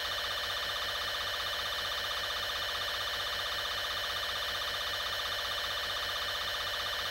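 Electronic emergency warning tone sounding steadily: a buzzy alarm at one unchanging pitch with a fast, even flutter.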